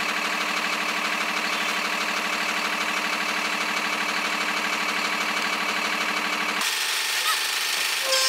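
Heavy truck's diesel engine idling steadily with an even, fast pulse, stopping abruptly about six and a half seconds in.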